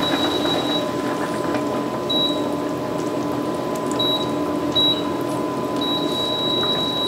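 Induction hob under a stainless-steel pot of boiling soup, just turned down to low heat: a steady electrical hum over the soup's bubbling, with a high whine that cuts in and out several times and then holds steady near the end.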